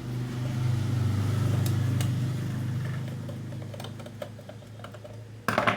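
A low motor hum that swells over the first second and fades away over the next few seconds, with a few light clicks and a short loud clatter near the end.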